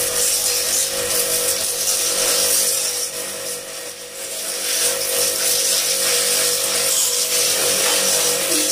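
Starq W3A electric pressure washer running under load: a steady motor whine over the hiss of the water jet spraying a motorcycle, briefly dipping about four seconds in.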